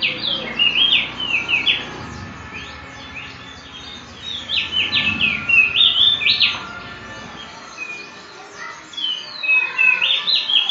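A caged prenjak (prinia) singing vigorously in three bursts of quick, sharp chirps that sweep up and down in pitch, with short pauses between the bursts.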